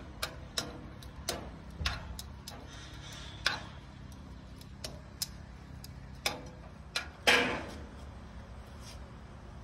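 Metal tongs clicking and knocking against a frying pan as strips of steak are turned and stirred, about ten irregular taps, with a longer scrape about seven seconds in.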